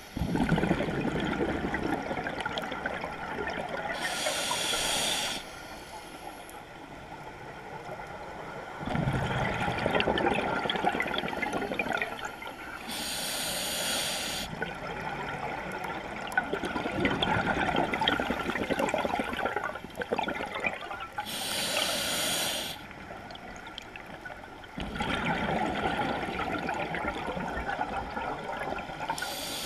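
Scuba breathing through a regulator underwater: slow, even breaths about every eight seconds. Each breath is a short hiss of inhaled air followed by a longer bubbling rush of exhaled air.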